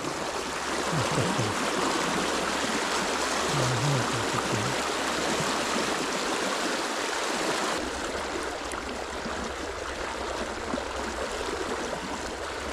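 River water rushing steadily. The rushing changes abruptly about eight seconds in.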